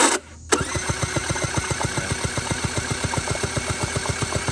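Honda Spree two-stroke scooter engine being spun by its electric starter with the spark plug out, a short burst and then steady cranking in rapid, even pulses, clearing two-stroke oil that had flooded the cylinder out through the plug hole.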